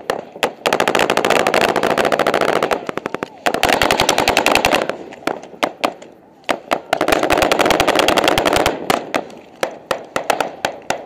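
Automatic gunfire: three long bursts of rapid fire, with scattered single shots between them and near the end.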